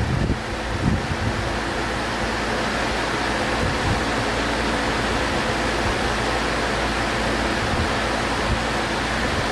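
Central air conditioner's outdoor condenser unit running: a steady rush of air from the fan with a low hum underneath.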